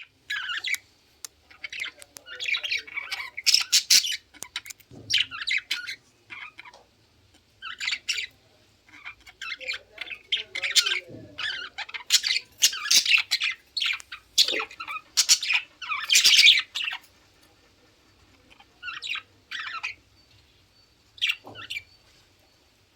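A pet bird squawking and chirping in rapid, irregular bursts of harsh calls, busy for most of the clip and thinning to a few calls near the end.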